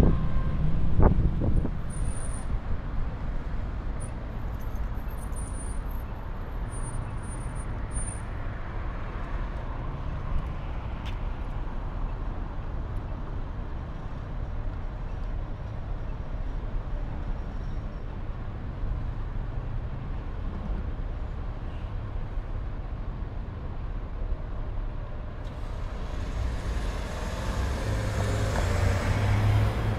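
Steady city street traffic noise, with wind buffeting the microphone briefly at the start. From about 25 seconds in a bus approaches and its sound grows steadily louder.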